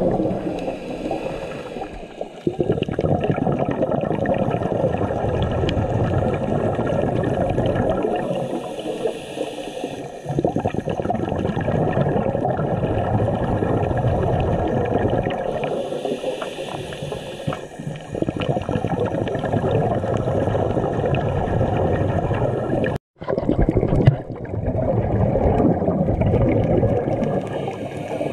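Underwater sound through a GoPro's waterproof housing: a continuous, fluctuating gurgle and rush of water against the camera, with a brief dropout near the end.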